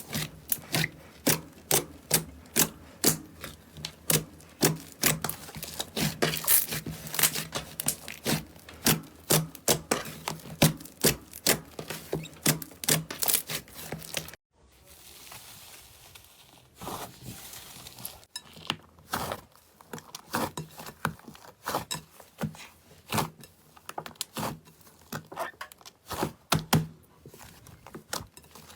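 Slime being squeezed and pressed by hand, giving a rapid run of sharp clicks and pops. The sound breaks off briefly about halfway, then the clicks and pops go on more sparsely.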